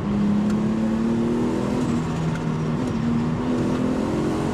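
Tuned Nissan Skyline GTT's turbocharged 2.5-litre inline-six (RB25DETT Neo) pulling under acceleration, heard through an open window. Its pitch rises, drops back about two seconds in, and rises again.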